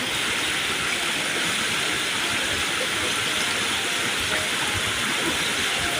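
A large waterfall rushing in a steady, loud roar of falling water, heard close up.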